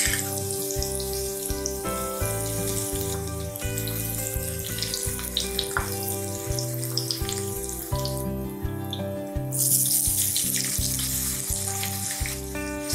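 Chopped garlic sizzling and crackling in hot oil in a pan, with background music of held notes and a bass line underneath. The sizzle drops away briefly about eight seconds in and returns a moment later.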